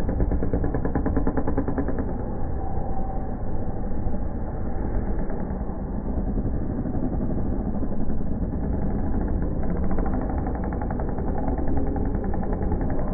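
Several motocross bikes racing on a supercross track, their engines running and revving continuously.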